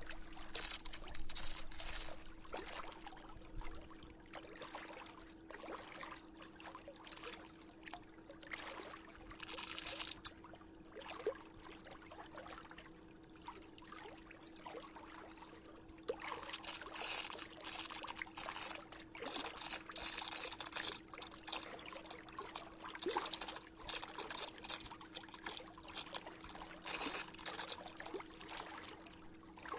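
Swimming pool filter running: water splashing and trickling in uneven surges over a steady low hum.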